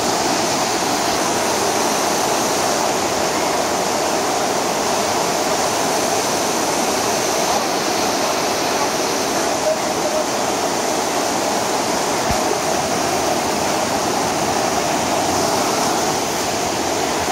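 Whitewater of a cold, spring-fed mountain stream rushing over rocks: a steady, even rush of water.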